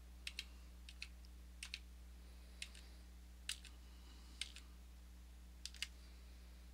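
Sharp clicks of a computer mouse, scattered irregularly and several coming in quick pairs as a button is pressed and released, over a faint steady low hum.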